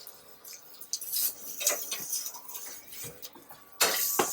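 Cooking utensil clinking and scraping on the grill plate of a PowerXL Smokeless Grill Pro while the salmon is turned. Near the end a louder, steady hiss begins.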